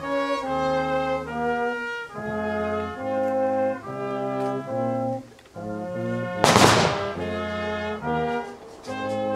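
Slow brass music, with held chords changing every half second to a second. A single loud crash comes about six and a half seconds in.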